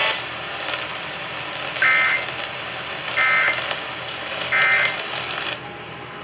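Emergency Alert System end-of-message signal: three short warbling bursts of digital data tones, a little over a second apart, over a steady radio hiss. They mark the close of the severe thunderstorm warning. The hiss drops away near the end.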